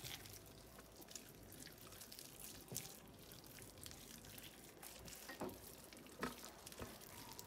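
Faint wet squelching of hands rubbing a spice paste into a raw lamb shoulder in a bowl, with a few slightly louder squelches in the second half.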